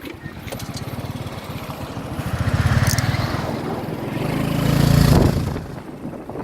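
A small engine running, its firing pulses growing louder about halfway through, then peaking and falling away shortly before the end.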